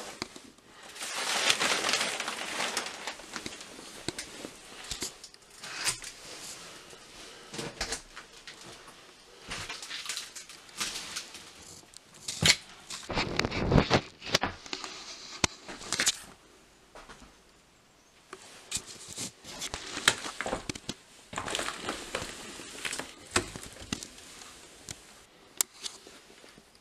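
Footsteps and handling noise in a small, bare room: crackling and crunching of debris and old paper underfoot, with scattered knocks and one heavier thump about halfway through.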